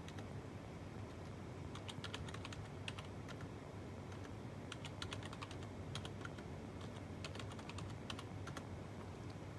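Keystrokes on a computer keyboard: short runs of sharp clicks with pauses between them, as a password is typed in and confirmed.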